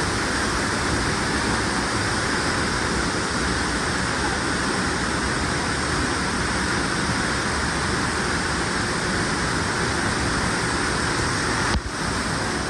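Waterfall: water falling and rushing with a steady, even noise, with a brief break near the end.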